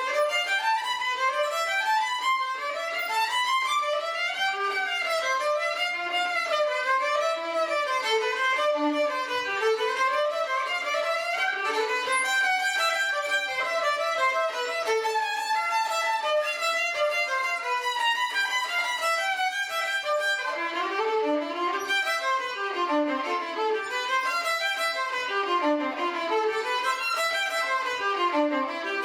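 Violin playing a continuous stream of fast notes in rising and falling runs, with no pause.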